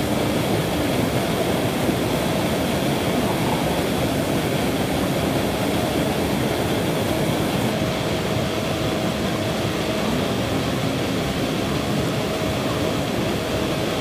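Steady rushing of white water where a small waterfall pours into a river pool.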